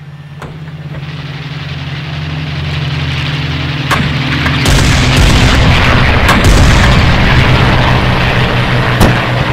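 Cinematic film score fading in: low sustained drone notes under a rushing swell that grows much louder and fuller about halfway through. A few sharp booming hits are spaced through it.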